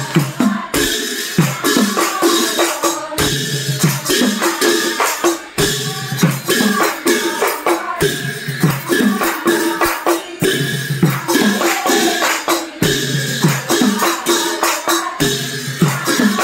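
Devotional music: barrel hand drums beaten in a quick, steady rhythm, with large hand cymbals clashing along.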